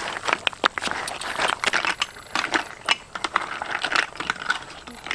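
Snail shells clattering and clinking against a metal wok as they are stir-fried with water spinach, in a rapid, irregular run of clicks with a steady hiss underneath.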